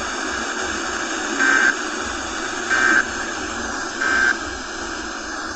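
Emergency Alert System end-of-message data bursts: three short digital squawks, about 1.3 s apart, over a steady hiss of radio static. They mark the close of the tornado warning broadcast.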